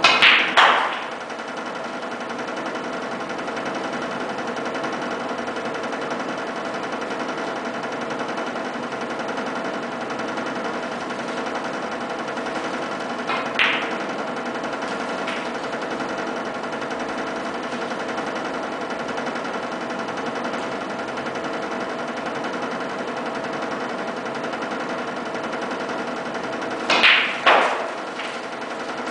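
Snooker shots: each is a sharp click of the cue tip on the cue ball, followed a split second later by the clack of the cue ball striking a coloured ball. The three shots come at the very start, about halfway, and near the end. A steady machine hum runs underneath.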